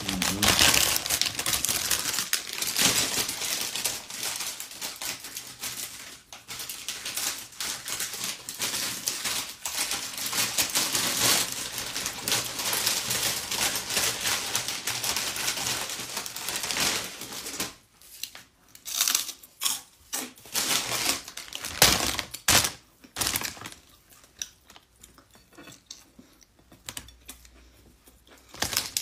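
Crackling, crinkling handling and eating noises of a meal of rice and snakehead fish eaten by hand close to the microphone: dense for about the first seventeen seconds, then broken into separate short bursts, fading to faint crackles near the end.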